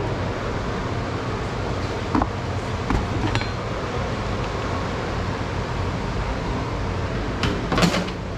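Steady low background hum with a few light clicks and knocks, and a quick cluster of sharper clicks near the end.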